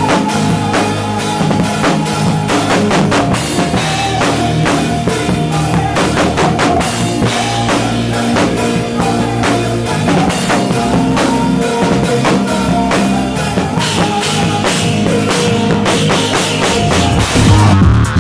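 A live band playing, with a drum kit beating a steady rhythm of kick and snare under bass and sustained chords. The music gets louder near the end.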